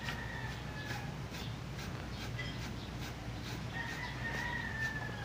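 A rooster crowing twice. One long crow fades out about a second in, and another starts a little before four seconds in and runs to the end.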